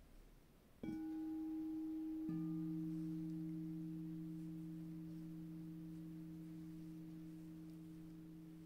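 Two singing bowls struck one after the other, a higher one about a second in and a lower one about a second and a half later. Both ring on with pure, steady tones that fade slowly.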